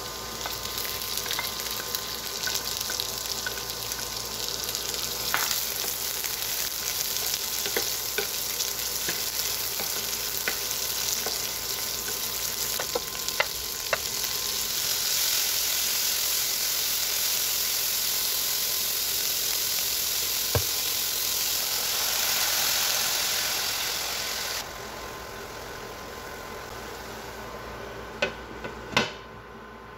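Garlic and then bean sprouts sizzling in hot oil in a nonstick pan, a steady hiss with light clicks of a spatula stirring. About halfway through the sizzle grows louder, then drops off suddenly; near the end come two sharp knocks as a glass lid is set on the pan.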